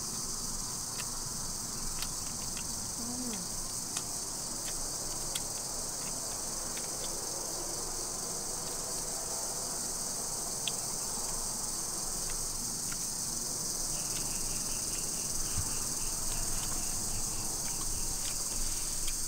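Steady, high-pitched chorus of insects shrilling without a break, with a few faint clicks over it.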